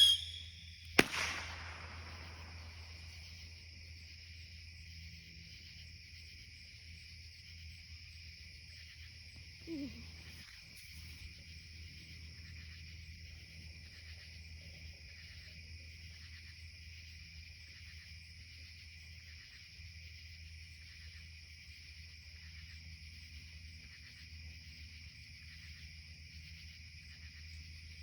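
A single firework bang about a second in, with a short trailing rumble. After it a steady chorus of night insects chirrs in an even pulsing rhythm, over a low constant hum.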